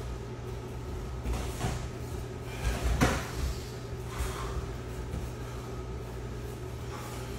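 Dull thuds of gloved punches, kicks and footwork landing during stand-up sparring, a handful of hits with the loudest cluster near the middle. Under them runs a steady ventilation hum.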